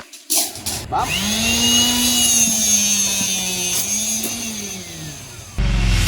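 Electric motor of a flywheel-type rebar cutter running with a steady, slightly wavering whine, after a short clatter at the start. The whine sags in pitch just before loud rock music cuts in near the end.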